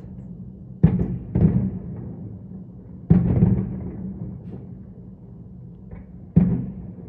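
Aerial fireworks shells bursting: four deep booms, two close together about a second in, one near three seconds and one near six and a half, each trailing off in echo.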